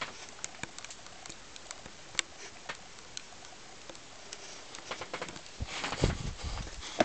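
Footsteps and small knocks of someone picking their way through a cluttered loft: scattered light ticks, then a run of heavier low thuds about six seconds in.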